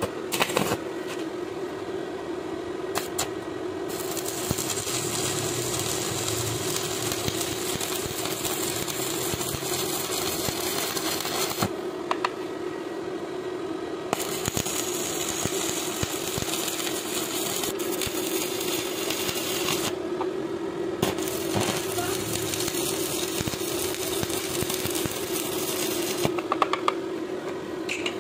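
Stick (arc) welding on thick steel plate: the electrode arc crackles and sizzles in three runs, each several seconds long, as three beads are laid, with short breaks between them. A steady hum runs underneath.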